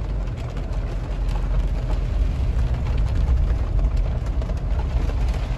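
Cabin noise of a Mahindra Thar diesel automatic driving on a wet road: a steady low rumble of engine and tyres, with rain ticking faintly on the windscreen.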